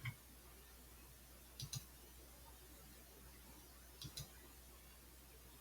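Computer mouse clicking over near silence: a single click at the start, then two quick double-clicks about two and a half seconds apart.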